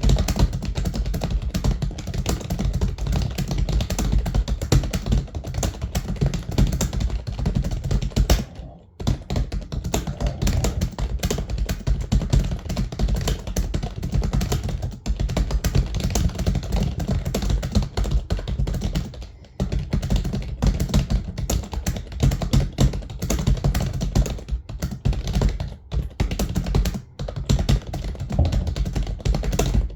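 Fast, continuous typing on a computer keyboard, a dense run of key clicks at roughly 100 words per minute, with a few short pauses of under a second.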